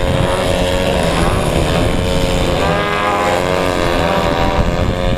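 Several radio-controlled aerobatic airplanes' engines and propellers buzzing together as they hover nose-up, their pitches rising and falling against each other as the throttles are worked.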